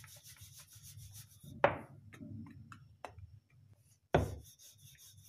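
Wooden rolling pin rolling out a small ball of dough on a stone surface: a steady low rubbing rumble, with two sharp knocks, about a second and a half in and again about four seconds in.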